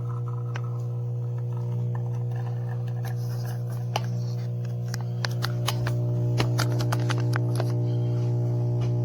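Espresso machine pump humming steadily while a shot is pulled, with light clicks and ticks coming in from about three seconds in. The shot is running slow, a sign the grind is a little tight.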